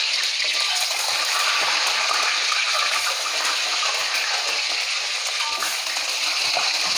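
Peeled hard-boiled eggs frying in shallow hot oil in a steel wok: a steady sizzle with fine crackling.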